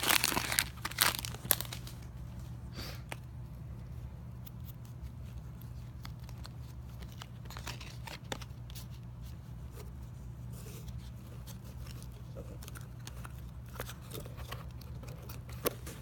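A trading-card pack wrapper crinkling and tearing open during the first second or so, then faint rustles and light clicks of cards being handled, over a steady low hum.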